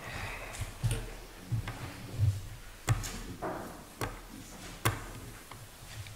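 Scattered handling sounds as paper ballots are handed out around the tables: about six sharp knocks and clicks, some with a dull thud, and brief rustling between them.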